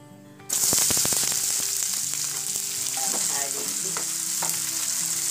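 Chopped onions and green chillies hitting hot oil, bursting into a loud sizzle about half a second in that holds steady as the onions fry, with scattered knocks and scrapes as they are stirred in the pan.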